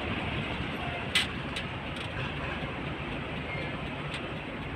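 Steady low rumble of idling container trucks queued in a port, with one sharp, loud knock about a second in and two fainter knocks later.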